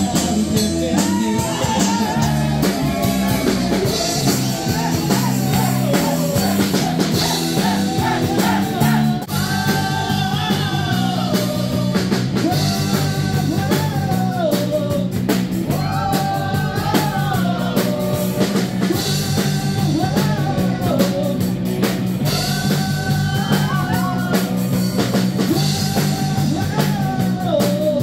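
Live rock band playing loud: electric guitar, bass and drums with a singing voice over them. The band shifts into a new section about nine seconds in.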